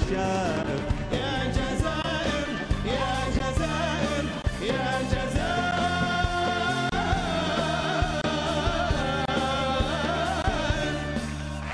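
Live band with a drum kit playing an Arabic pop song, with a male voice singing long, wavering melodic lines over steady bass and drums.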